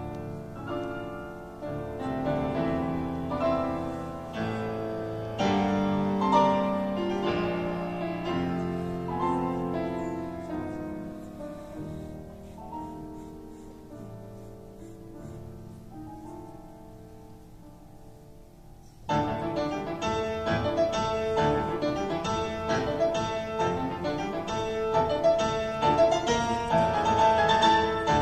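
Solo concert grand piano playing classical music. A phrase builds and then fades to a quiet, sparse passage. About two-thirds of the way through, a sudden loud passage of rapid notes breaks in.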